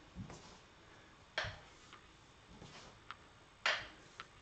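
Bare feet stepping and landing on a wooden floor in a repeated chassé step. There are two sharp knocks, about a second and a half in and near the end, with fainter taps between them.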